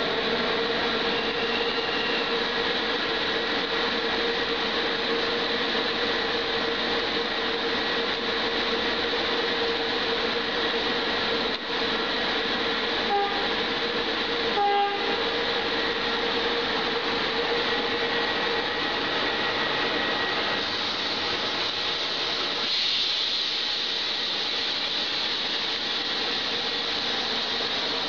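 A train running through a station, a steady loud rumble and rail noise, with two short horn blasts about halfway through.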